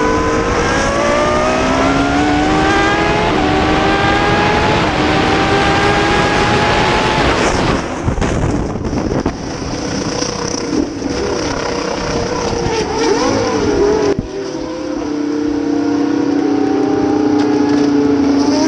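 Race car engines at full throttle, the pitch climbing repeatedly as they shift up through the gears. After a sudden cut about eight seconds in come warbling squeals, then a steady high engine note near the end.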